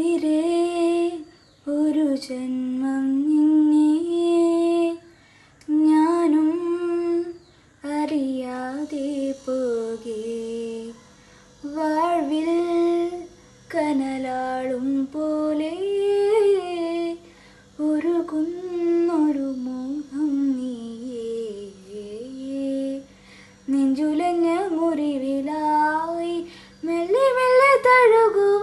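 A young woman's voice singing a melodic song in phrases of a few seconds, with short breaks for breath between them and no clear accompaniment.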